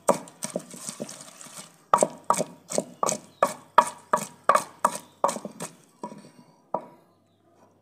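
Wooden pestle pounding mint, green chillies and onion in a clay pot, each stroke a dull wet thud on the mash. Softer, uneven strokes at first, then a steady run of about three strokes a second that stops about a second before the end.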